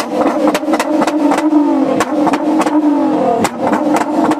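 Nissan GT-R's twin-turbo V6 held at high revs with a steady, slightly wavering note, punctuated by sharp exhaust pops and bangs at about four a second.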